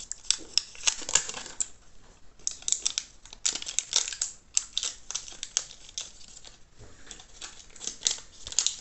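Crinkling and tearing of the thin protective wrap as it is peeled off an Apple 61 W USB-C power adapter, in quick irregular rustles with a short lull about two seconds in.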